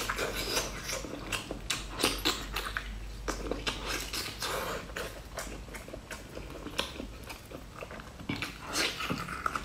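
Close-up eating sounds: biting into and chewing a soft slab of salmon coated in a thick sauce, with many short, irregular wet clicks and mouth smacks.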